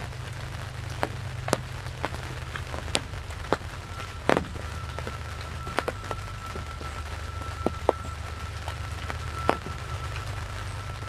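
Heavy rain falling in woodland: irregular sharp taps of drops striking close by over a steady hiss and a low steady rumble.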